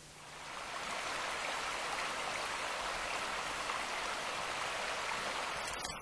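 Steady rush of running water, fading in over about the first second.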